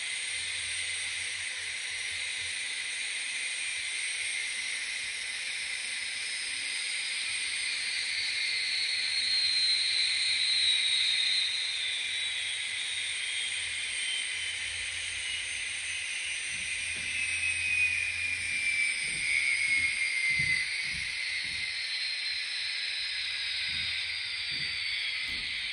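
Gas turbine sound from the sound-equipped N scale Union Pacific GTEL 4500 turbine locomotives, played through their small onboard speakers: a steady high hiss with a whine that slowly falls in pitch. A few low thumps come in the later part.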